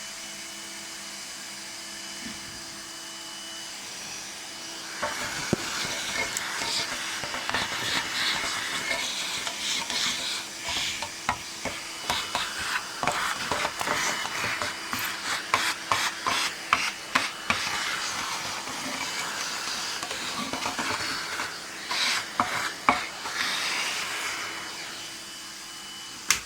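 Vacuum cleaner running with a steady motor whine. From about five seconds in, its nozzle works over the typewriter, sucking noisily with many small clicks and rattles against the metal, to pick up settled dust.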